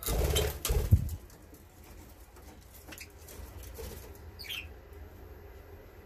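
A budgerigar's wings flapping in a loud, brief flurry close by as it takes off, lasting about a second. A single short budgie chirp follows a few seconds later.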